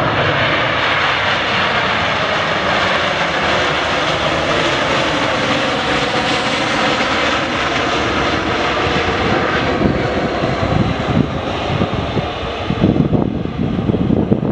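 A Boeing 737-800's CFM56-7B jet engines running loud and steady as the airliner rolls out after touchdown. The jet noise eases after about ten seconds, leaving gusts of wind on the microphone.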